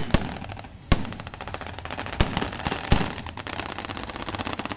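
Small-arms gunfire: several loud single shots, and from about a second in a long stretch of rapid automatic fire.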